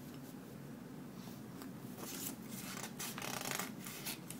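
A paper instruction manual being handled and flipped open, with a few short rustles of paper and small clicks.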